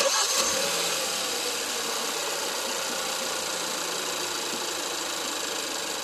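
Hyundai Santa Fe's 2.0-litre turbocharged four-cylinder engine idling, heard close up from the engine bay: a steady, even running noise, a little louder in the first second.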